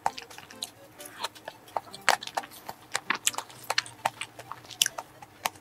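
Close-miked eating sounds of a blueberry cream cake: irregular sharp wet mouth clicks and chewing, with a metal fork digging into the soft cake in its plastic cup.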